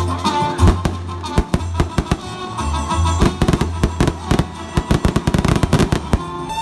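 Fireworks going off in rapid strings of sharp cracks and bangs, densest in the second half, over music with a steady bass line.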